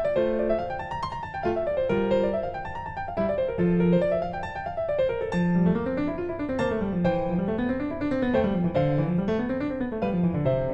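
Background piano music: rising and falling arpeggios over a low bass line.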